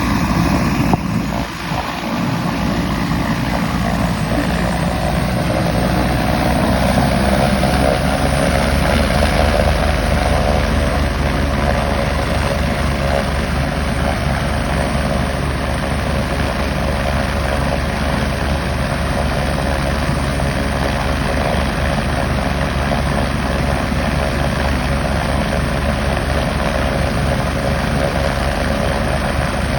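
Helicopter running: a loud, steady drone with a high whine that rises slowly in pitch over the first ten seconds or so, then holds steady.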